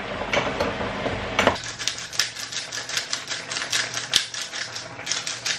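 Hand-twisted spice grinder grinding over a cooking pot: a fast run of dry clicks that starts about a second and a half in and keeps going for several seconds.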